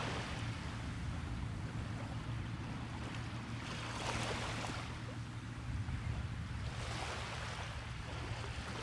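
Small waves washing onto a beach, each wash swelling and fading about every three seconds, over a steady low rumble.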